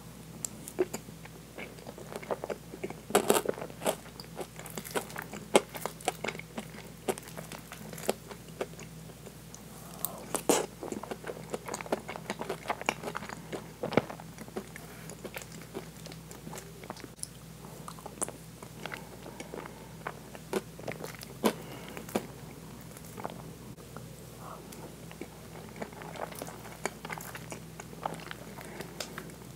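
Close-miked wet chewing and mouth clicks from eating very soft French toast with whipped cream, the clicks coming irregularly and thickest in the first half, over a faint steady hum.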